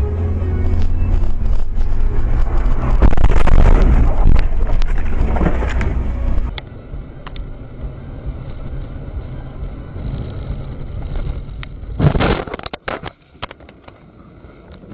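Dash-cam road noise: a heavy, low rumble of wind on the microphone over vehicle noise for the first six seconds. After a cut comes quieter engine and road noise, then a sudden loud crash of several impacts about twelve seconds in.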